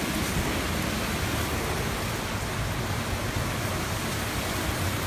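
Steady noise of a typhoon storm, driving rain and wind, with no distinct impacts.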